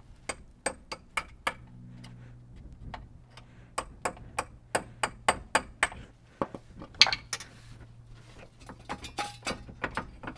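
Repeated hammer blows from a 3 to 4 pound hammer on a small chisel wedged between the half shaft flange and the transaxle flange, driving apart flanges stuck together by corrosion. The strikes come in irregular runs, some about three a second.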